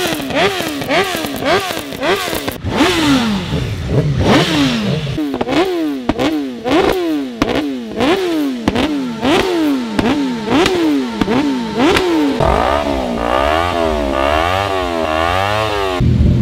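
BMW S1000R inline-four sportbike with an aftermarket exhaust being revved in quick repeated throttle blips, each a sharp rise and fall in pitch. About twelve seconds in the sound changes to an engine revved in quicker, shallower up-and-down swings over a steady lower engine sound.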